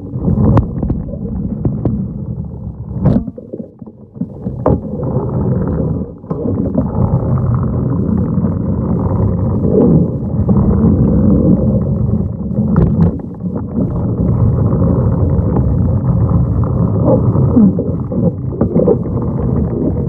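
Manual pool vacuum head being pushed across the pool floor, heard underwater: a muffled, steady low rumble of water and suction, with a few sharp clicks and knocks from the head and pole.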